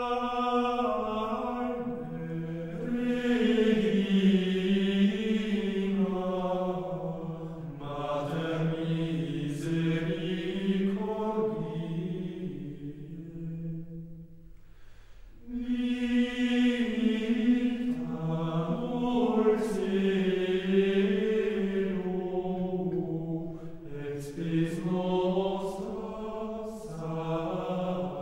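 Gregorian chant: voices singing one melodic line in long, slow phrases, with a short breath-pause about halfway through before the next phrase begins.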